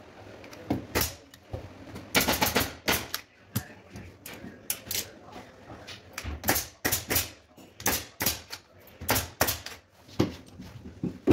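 Sharp clicks and snaps in quick little clusters, roughly one cluster a second, from hands working on a wooden sofa frame during re-upholstery.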